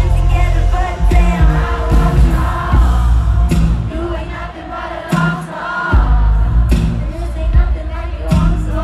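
Live pop song through a concert PA, recorded from the crowd: a female lead vocalist singing over a heavy bass beat, with the crowd singing along. The bass drops out for about a second just past the middle, then comes back.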